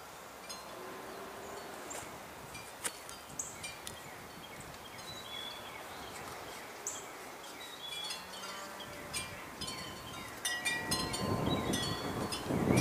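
Wind chimes tinkling, many short ringing notes at different pitches, with wind gusting on the microphone, louder from about ten seconds in.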